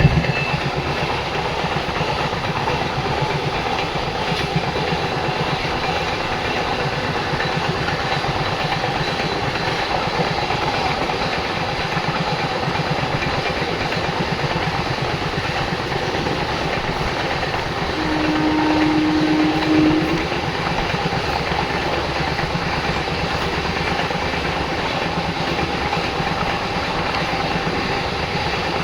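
Dakshin Express passenger train running along the track: a steady rumble and clatter of the coaches. About two-thirds of the way through, a steady tone is heard for about two seconds.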